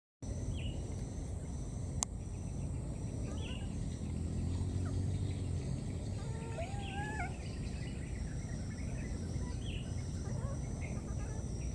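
Outdoor ambience: a steady low rumble and a steady high hiss, with scattered short chirps and one wavering call about six to seven seconds in, plus a single sharp click near two seconds.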